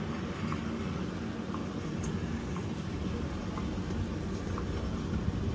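Steady engine and road rumble of a vehicle being driven, heard from inside the cab, with a faint tick about once a second.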